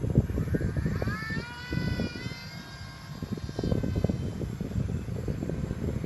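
Motor and propeller of a radio-controlled fixed-wing model plane whining as it flies by. It rises in pitch about a second in, holds steady, then fades out near four seconds. Wind buffets the microphone throughout.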